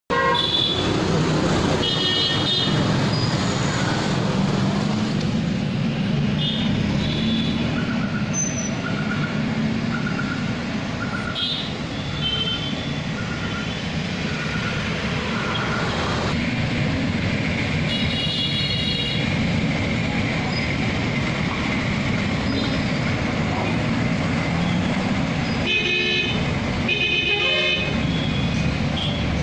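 Heavy bus diesel engines running steadily in busy bus-stand traffic, with short vehicle horn toots every few seconds and a cluster of toots near the end.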